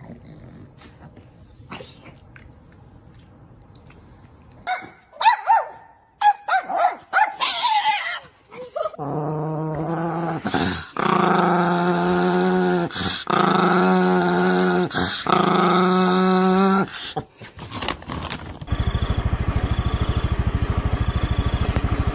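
A dog giving four long, drawn-out growling cries in a row, each about two seconds, after a few short high squeals. A steady pulsing hum takes over near the end.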